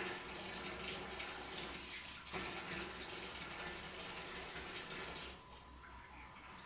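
Water running and splashing in a small washing area, stopping about five seconds in.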